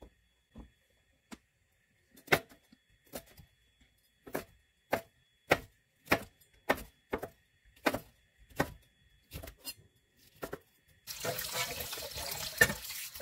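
Chef's knife slicing green chili peppers on a wooden cutting board: about a dozen separate chops, one to two a second. Near the end come about two seconds of dense rushing noise.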